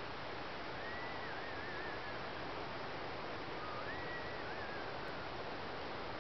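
Steady hiss of wind on the microphone, with two high, wavering whistles, each about a second and a half long and about three seconds apart.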